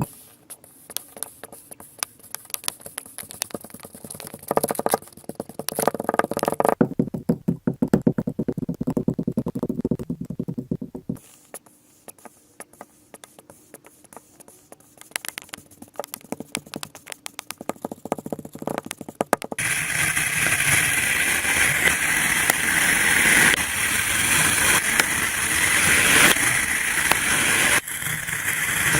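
Kinetic sand being worked by hand, with crisp crunching and crackling. It thins out to scattered quiet crackles for several seconds, then becomes a loud, dense crumbling about two-thirds of the way through.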